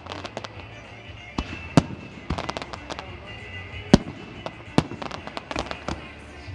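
Fireworks shells bursting in a display, with sharp bangs about two and four seconds in and again near five seconds, and quick crackling in between.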